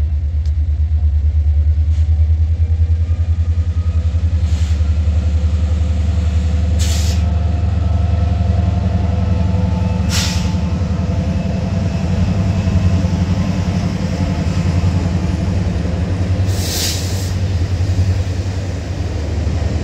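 Canadian Pacific diesel locomotive and its train of cars rolling past, a steady pulsing low rumble of engine and wheels. A few brief hissing bursts cut through it at intervals.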